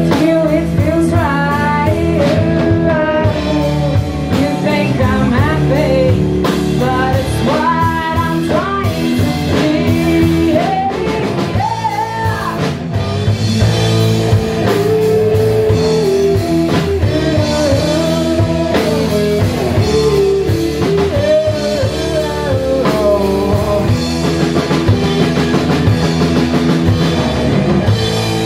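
Live rock band playing: distorted electric guitar, bass guitar and drum kit, with the bassist singing lead vocals over them.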